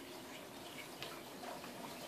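A blanket with ferrets riding on it being dragged across a hard floor: a faint swishing slide, with a small click about a second in.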